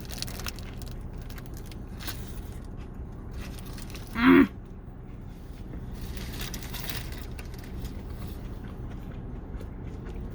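A person eating fast food: small clicks, crunches and wrapper rustles over a steady low hum, with one short loud vocal sound about four seconds in.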